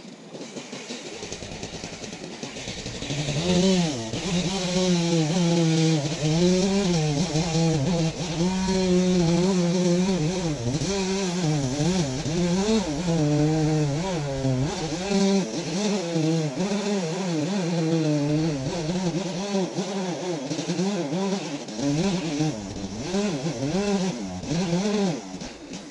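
Chainsaw running hard while cutting up in a maple tree, its pitch repeatedly rising and dipping as the chain loads and frees in the wood. It grows much louder about three seconds in and fades near the end.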